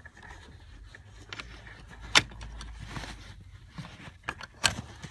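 Wires being pulled free from where they were tucked behind plastic dashboard trim: light rustling and scraping with scattered sharp clicks and knocks, the loudest about two seconds in and another near the end.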